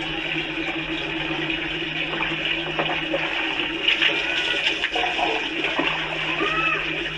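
Bucket bath: water scooped with a plastic mug from a large tub and poured over a person's head, splashing onto the floor, over a steady rush of water.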